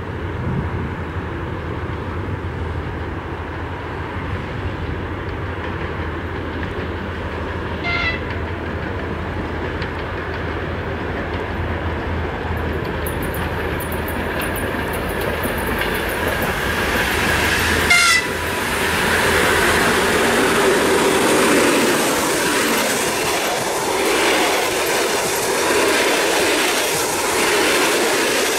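EP2K DC electric locomotive hauling a passenger train approaches with a steady low hum. It gives two brief toots on its horn, about eight seconds in and again at about eighteen seconds, the second louder. It then passes, and the passenger coaches roll by with a louder rumble and the clickety-clack of wheels over rail joints.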